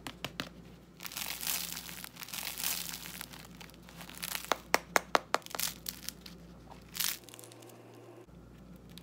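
Crisp crust of freshly baked baguettes crackling and crunching as hands squeeze and break them open, with a run of sharp cracks about halfway through.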